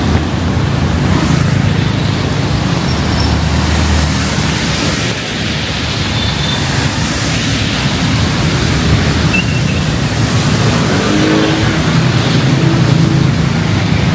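Road traffic in heavy rain: motor vehicle engines running close by over a steady hiss of rain. A nearer engine note comes in about eleven seconds in.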